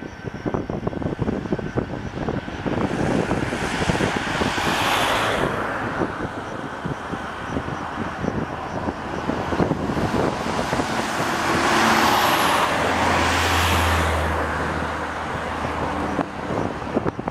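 Boeing 747-400 jet engines running as the four-engined airliner rolls out along the runway after landing, the noise rising and falling twice. Wind buffets the microphone throughout.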